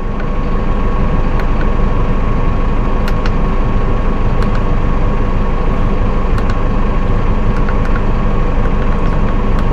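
Massey Ferguson 5S.145 tractor's four-cylinder diesel engine running steadily, heard from inside the cab, with a steady high whine over the engine note and a few faint clicks.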